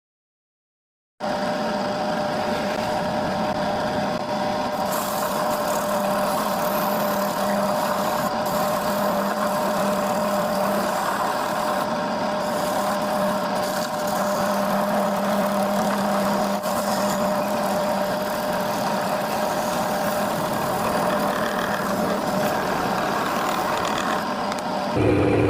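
Homemade drum sander's motor running steadily with a constant whine, starting about a second in; just before the end the sound changes abruptly.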